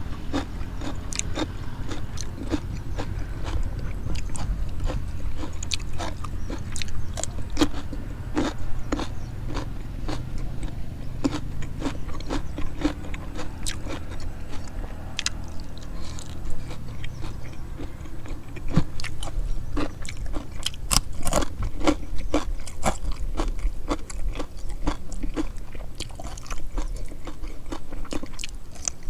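Close-up eating sounds: a person biting and chewing, with many small, irregular crisp crunches and clicks over a steady low hum.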